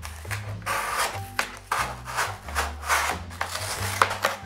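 Small blade carving and scraping cured expanding foam: repeated short rasping strokes, about two or three a second.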